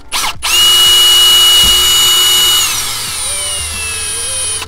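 Cordless drill with a small twist bit drilling a screw hole through a car's interior dash panel: a brief trigger blip, then a steady high whine for about two seconds, after which the motor slows and the pitch falls away.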